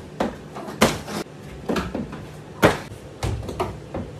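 Climbing shoes and hands knocking against holds and the plywood wall of a bouldering wall: irregular knocks and thuds, about two a second, with a short room echo.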